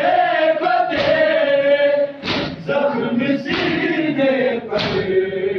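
A crowd of men chanting a Shia noha (Muharram lament) in unison, holding long notes. It is punctuated by four sharp unison strokes of matam, hands striking chests, about every 1.2 seconds.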